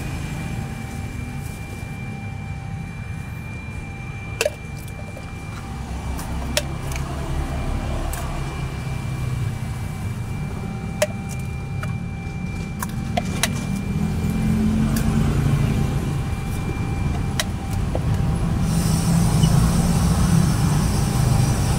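Gas wok burner running under an empty iron wok: a steady low roar with a faint whistle, a few light metallic clinks of a ladle, and a loud hiss that starts suddenly near the end.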